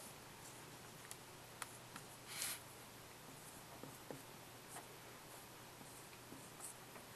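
Felt-tip marker drawing on a white board: a few faint short scratching strokes and taps, the loudest a brief scratch about two and a half seconds in, over a steady low hiss.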